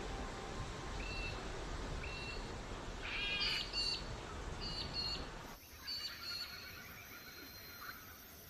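Birds calling in short high notes, about one a second at first and then a busier cluster, over a steady low rush. The rush cuts out suddenly a little past halfway, leaving quieter bird calls and a fast trill.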